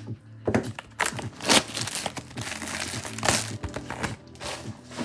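A 2024 Topps Cosmic Chrome baseball card box being opened by hand: irregular crinkling and ripping of its wrap and cardboard, loudest about one and a half and three seconds in, over background music.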